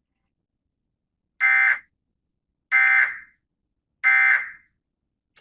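Emergency Alert System end-of-message data bursts: three short, identical bursts of harsh digital data tones, about 1.3 seconds apart. They mark the end of the alert.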